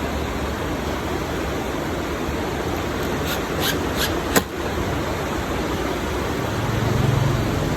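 Screws being fitted into a speaker cabinet: a few sharp clicks and taps over a steady hiss of background noise, with a low hum swelling briefly near the end.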